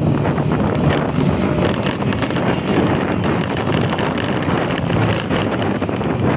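Heavy wind rushing over the microphone from a vehicle travelling at speed, with a low engine hum underneath.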